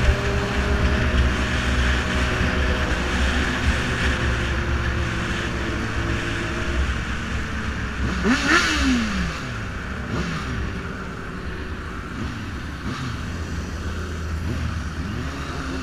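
Sport-bike engine running at riding speed, with wind rushing past. About eight seconds in, an engine revs up and falls back, and the engine sound then settles lower.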